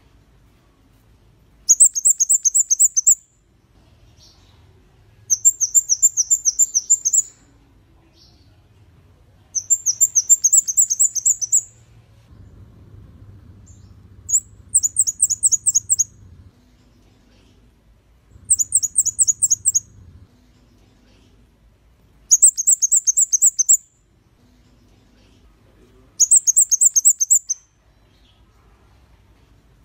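Kemade kepala merah, a small red-crowned flowerpecker, calling in bouts of rapid, very high, sharp chips. Each bout lasts about one and a half seconds and comes about every four seconds, seven times in all.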